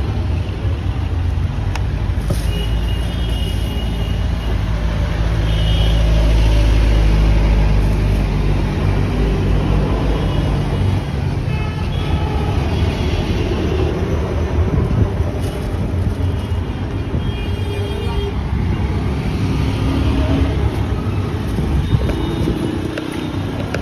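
Street traffic: vehicle engines running close by, with a low rumble that swells about six to eight seconds in, and short horn toots now and then.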